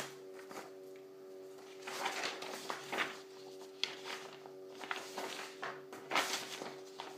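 Stack of printed paper sheets rustling and shuffling as the pages are handled and leafed through, in irregular short bursts, over a faint steady hum.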